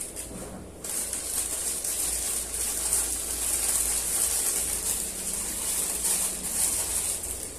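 Plastic packaging crinkling and rustling as it is handled, starting about a second in.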